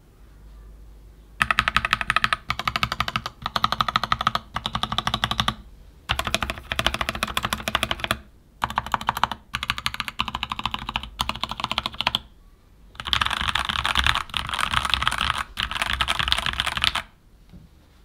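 Keychron K14 mechanical keyboard with Gateron Red linear switches being typed on: fast runs of keystrokes in several bursts with short pauses. The typing starts about a second and a half in and stops about a second before the end.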